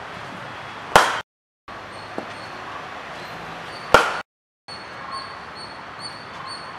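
Cricket bat striking a ball twice, about three seconds apart, each a single sharp crack. A high short chirp repeats about twice a second over steady background noise from a little past two-thirds through.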